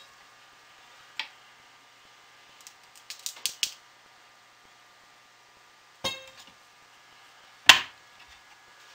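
Clicks and knocks from a wooden soap cutter as a loaf of cold process soap is pushed through it and cut into bars: a single click about a second in, a quick run of sharp clicks around three seconds, then two knocks near the end, the last the loudest, the first with a brief ring.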